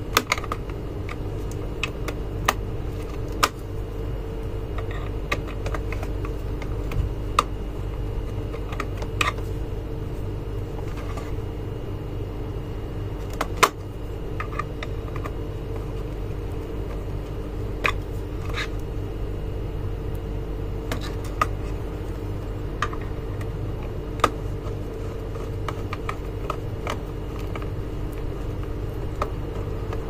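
Irregular small clicks and taps of a small screwdriver and fingers working the plastic screw terminals and wires of a digital thermostat controller. One click, about halfway through, is louder than the rest. A steady background hum runs underneath.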